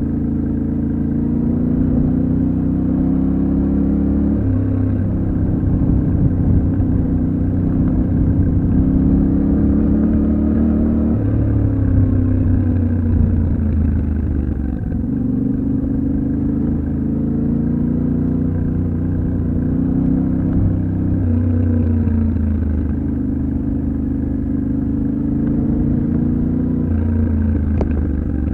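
Yamaha Ténéré 700's parallel-twin engine running under a rider off-road, its pitch rising and falling several times with throttle and gear changes. A single sharp tick near the end.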